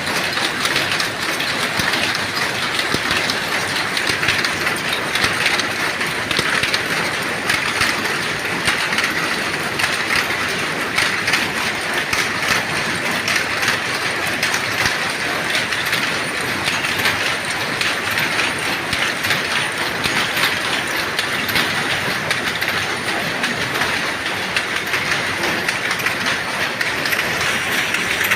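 Dobby power loom weaving terry towelling, running with a fast, even mechanical clatter of rapid clicks.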